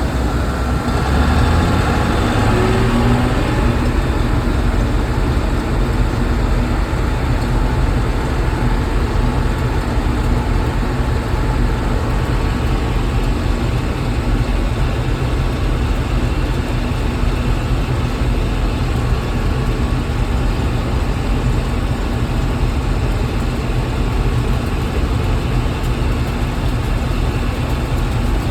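John Deere 6600 combine running steadily under a loud, low engine drone, with a brief rise in pitch about two seconds in.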